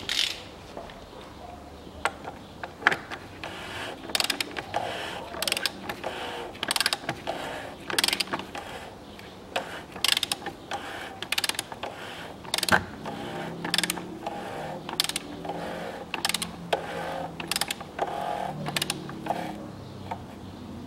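Ratchet wrench clicking stroke after stroke in quick runs as it screws down the oil filter housing cap on the engine.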